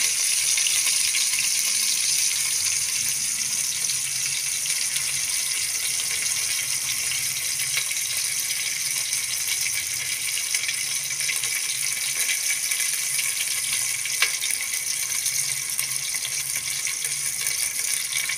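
Sliced onions frying in hot sesame oil in an aluminium pressure cooker: a steady sizzling hiss that eases slightly as it goes, with a single sharp click about fourteen seconds in.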